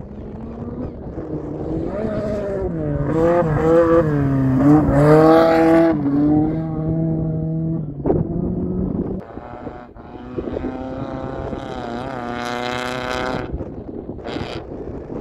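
Rally car engine revving hard as the car passes at speed on a dirt stage, its pitch rising and dropping with throttle and gear changes, loudest about five seconds in. Later the engine is heard more faintly, climbing in pitch again as the car accelerates away.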